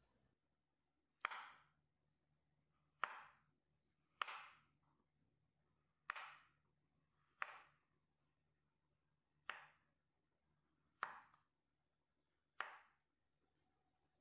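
Knife cutting a block of Japanese curry roux into cubes: eight sharp knocks of the blade on a wooden cutting board, spaced a second or two apart.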